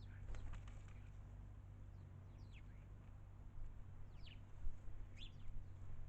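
Garden birds calling with a few short, downward-sweeping chirps spread through a few seconds, over a steady low background hum. A brief patter of clicks comes near the start.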